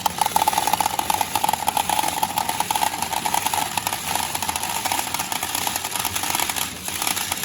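P大海物語4スペシャルBLACK pachinko machine in play: a dense rapid clatter of steel balls, with a pulsing electronic tone from the machine that fades after about four seconds.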